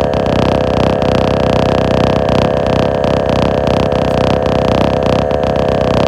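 Portable air compressor, powered from the vehicle, running steadily with a loud, even hum while it inflates a freshly patched tire through its air hose.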